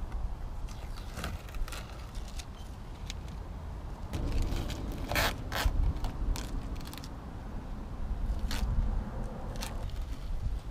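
Adhesive tape being pulled off a surface: short scraping, crackling pulls with scattered clicks, the loudest about five seconds in.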